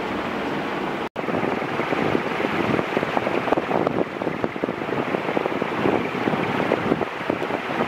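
Strong rushing air from a 1981 4 Saisons Industriel 120 cm ceiling fan running on high speed, its four curved metal blades pushing air that buffets the microphone. The sound cuts out for an instant about a second in.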